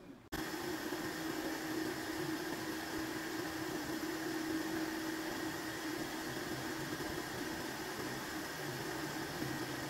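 Milling machine spindle running with a boring head, its boring bar cutting into an aluminium block to open out the gear cavity of a small gear-pump housing. A steady machine hum with an even hiss, starting suddenly just after the beginning.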